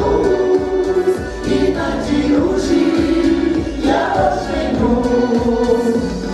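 A women's folk vocal ensemble singing together through microphones, with accordion accompaniment and a steady low rhythm underneath.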